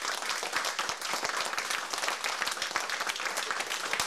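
Small audience applauding: many hands clapping in a dense, steady patter.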